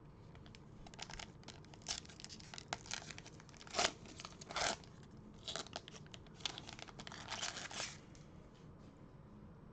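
A trading-card pack wrapper crinkling and tearing as it is ripped open, with short rustles of handling; the two loudest tears come about four seconds in.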